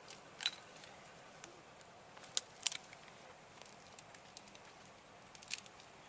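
Dry cane stalks and brush cracking as they are broken and pulled aside by hand: four sharp snaps, the loudest a little over two and a half seconds in.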